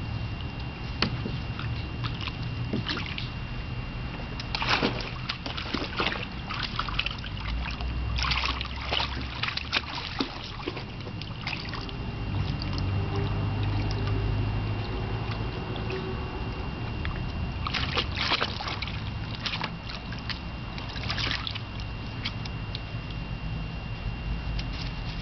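Water splashing and sloshing in a shallow plastic wading pool as a Newfoundland dog and puppy wade and dip their muzzles into it, the splashes coming in spells, busiest about a third of the way in and again about three-quarters through.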